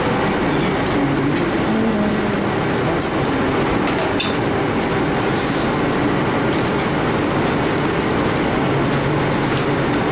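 Steady, loud roar of a commercial kitchen's extraction and equipment fans, with a few light clicks and clinks from work at the counter.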